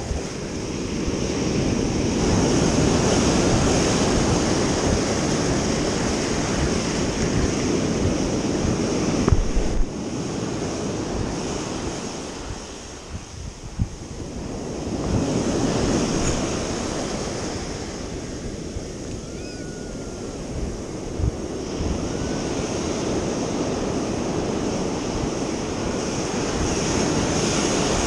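Ocean surf breaking and washing up the shore, swelling and easing over several seconds at a time.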